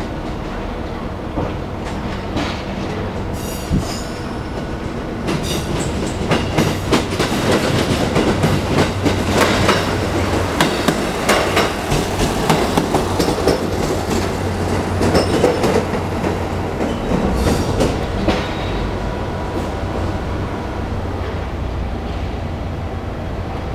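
JR Kyushu Kiha 220 single-car diesel railcar running past on the track, its diesel engine humming steadily and its wheels clicking over the rail joints. The clicking and rumble grow loudest as the car passes close, then ease off as it moves away.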